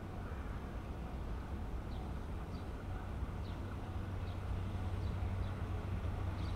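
A low, steady rumble that slowly grows louder, with short, faint bird chirps scattered over it.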